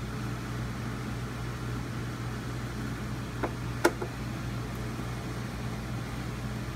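Light clicks from a Robertson (square-drive) hand screwdriver backing the screws out of a plastic RV control panel, two sharper ones a little past halfway, over a steady low mechanical hum.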